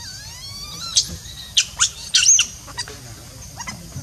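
Newborn macaque crying: a long, rising whimpering call, then a string of short, sharp high squeals, loudest about two and a half seconds in.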